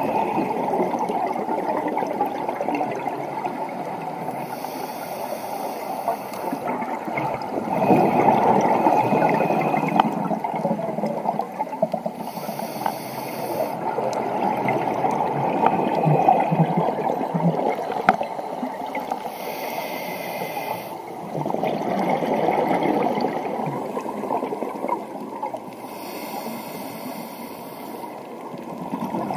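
Scuba diver breathing through a regulator, heard underwater: a hiss on each inhalation, about every seven seconds, and a rush of bubbling on each exhalation, over a constant muffled underwater noise.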